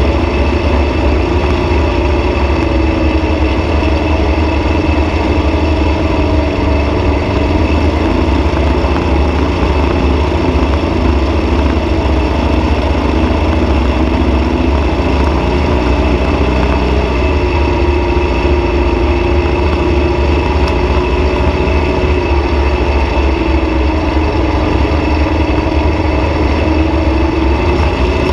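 Dune buggy engine running loud and steady at speed, its pitch drifting a little up and down with the throttle, over a heavy low rumble.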